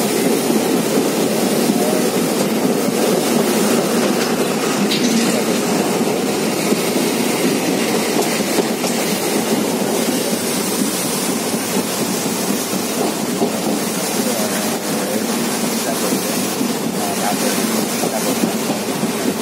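Passenger train running steadily at speed, heard from inside a carriage at an open barred window: a continuous loud rumble and rattle of wheels on rails and the moving coach.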